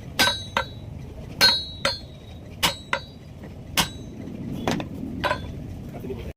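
Blacksmith's hammer striking metal on an anvil: about nine sharp, ringing blows, mostly in pairs of a heavy strike followed by a lighter one.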